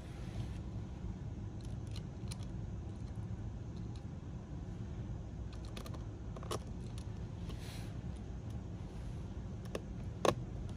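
Scattered small clicks and taps of a spudger and a precision screwdriver against the open laptop's internal parts, the sharpest click near the end, over a steady low hum.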